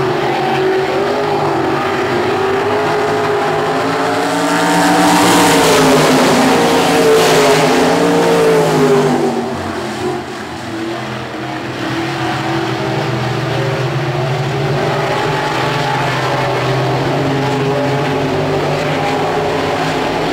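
A field of 305 winged sprint cars' V8 engines running on a dirt oval. The pack swells loudest from about four to nine seconds in as it passes, with the engine pitch bending up and down, then drops back and runs on steadily. This comes around the green flag for the start of the feature.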